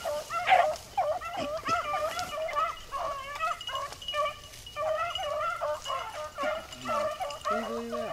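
A pack of beagles baying in chorus, many overlapping yelps without a break, as the hounds run a rabbit's track.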